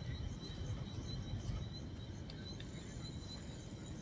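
Outdoor ambience: insects chirping in a steady, high-pitched pulsing trill over a low rumble, with a couple of faint clicks past the middle.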